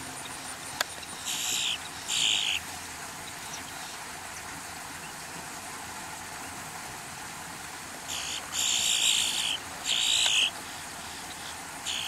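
Grackle giving short, harsh, raspy calls: a pair early on and a run of longer ones late, over a steady outdoor hiss.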